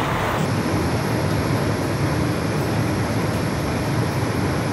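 Muddy floodwater rushing in a torrent and pouring over a concrete edge, a steady loud rushing of water.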